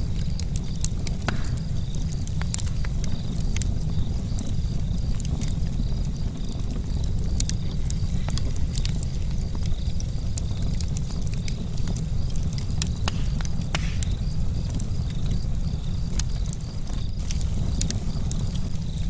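Charcoal campfire crackling: irregular sharp pops and ticks over a steady low rumble.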